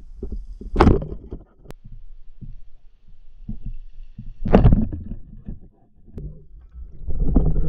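Band-powered speargun fired underwater: one sharp snap about four and a half seconds in, the loudest sound, over a low rumble of water against the camera housing. A shorter sharp knock comes shortly before the one-second mark.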